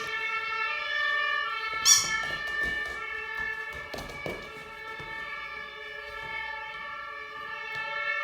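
Recording of an emergency-vehicle siren played back through a speaker: a stack of steady tones with a sharp noisy burst about two seconds in and faint clicks throughout.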